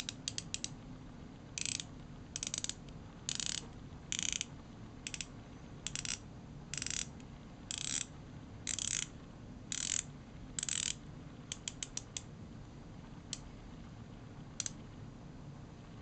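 Red rotating bezel of a Victorinox Maverick GS chronograph watch being turned by hand, ratcheting in short runs of rapid clicks about once a second, then a few single clicks near the end.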